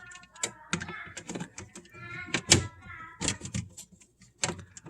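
Plastic refrigerator light-module parts being pressed and fitted by hand: a string of sharp clicks and knocks with short squeaks of plastic rubbing on plastic, as the piece fails to seat on its tabs.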